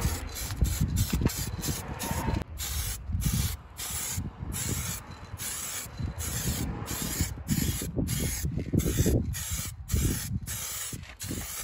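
Aerosol spray-paint can hissing in many short bursts, about two a second, as paint is sprayed onto an ATV's steel wheel rim.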